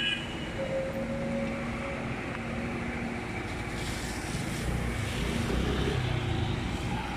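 Heavy diesel machinery running steadily amid street noise, with a deeper low rumble swelling from about four and a half seconds in.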